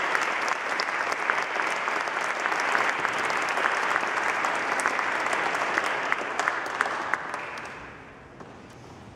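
Audience applauding, the clapping fading out about eight seconds in.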